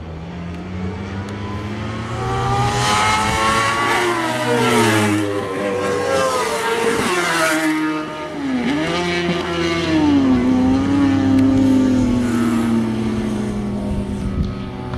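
Several four-stroke racing sport motorcycles at high revs passing the trackside on a circuit, engine notes climbing through the gears and dropping sharply as bikes go past, about four seconds in and again near the middle. A long falling engine note follows as the last bike pulls away.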